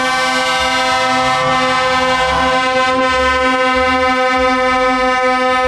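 Truck air horn held in one long, steady blast, cutting off suddenly near the end.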